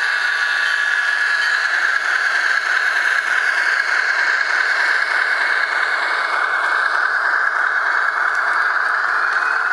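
Bachmann HO scale ALCO S4 model's Soundtraxx sound decoder playing ALCO 539T diesel engine sound through the locomotive's small speaker. It runs steadily and sounds tinny, with no deep bass.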